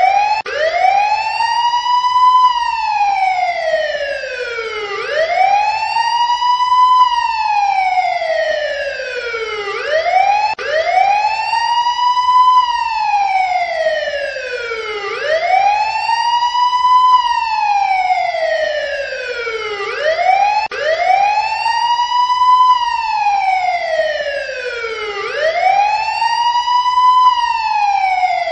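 Emergency vehicle siren in wail mode. Its pitch sweeps up quickly, then slides slowly back down, repeating about every five seconds.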